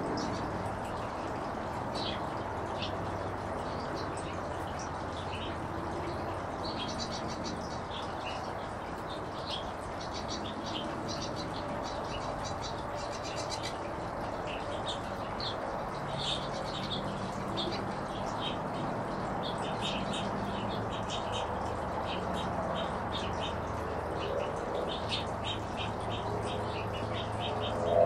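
Small finches chirping and twittering, many short high calls tumbling over one another throughout, over a steady low background rumble.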